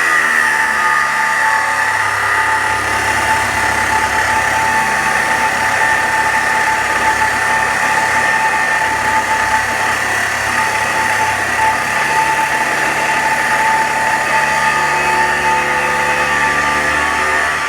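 Handheld angle grinder spinning up and cutting through a rusted steel leaf-spring shackle bolt head, a steady high whine that holds for the whole cut.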